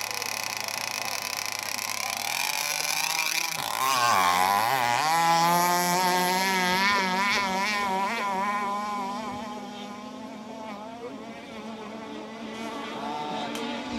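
Radio-controlled racing powerboat's engine running steadily, then revving up about four seconds in and running at high revs with a wavering pitch as the boat speeds away over the water. It fades about ten seconds in and grows louder again near the end.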